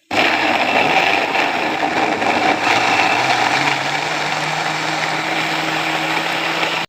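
Electric blender running, blending whole tomatoes into juice: a loud steady whir whose motor hum steps up in pitch about halfway through, then cuts off suddenly.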